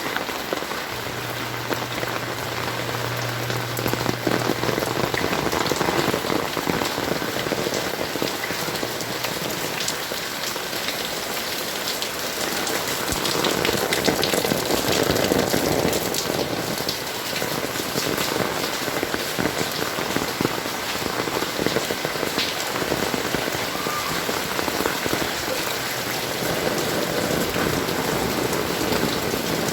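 Heavy rain falling steadily: a dense downpour with many fine drop ticks, swelling heavier about halfway through. A steady low hum sounds for a few seconds near the start.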